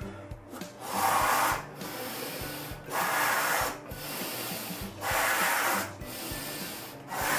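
A person blowing up a rubber balloon by mouth: four loud breaths about two seconds apart, with quieter blowing between them.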